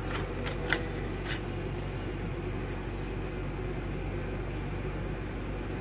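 A sheet of graph paper being handled on a table: a few brief rustles and taps in the first second and a half, and a short soft rustle about three seconds in, over a steady low room hum.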